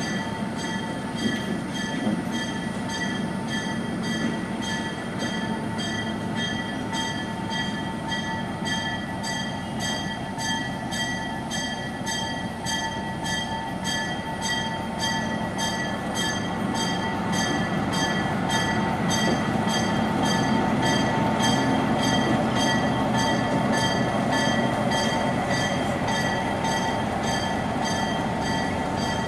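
A diesel locomotive's bell ringing steadily at a little under two strokes a second, over the low running of the locomotive's engine as it moves slowly. The engine grows somewhat louder past the middle.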